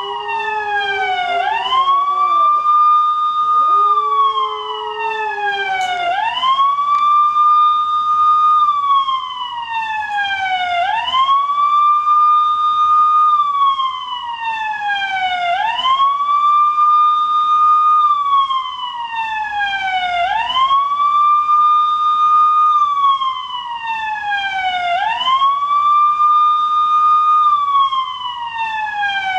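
Siren sound effect played through a speaker: a wail that rises quickly, holds, then falls slowly, repeating about every four and a half seconds. A miniature schnauzer howls along to it twice in the first six seconds.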